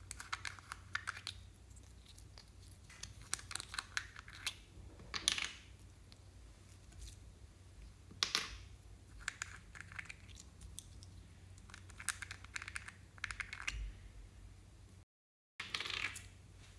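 Small plastic clicks and rattles from unscrewing the caps of contact lens cases, coming in short bursts several times, with a couple of sharper taps about five and eight seconds in.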